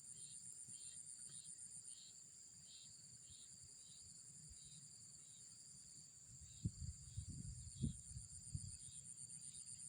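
Insects, crickets among them, trilling steadily in several high-pitched layers, with chirps pulsing about twice a second. About two-thirds of the way through, a short run of dull low thumps and bumps.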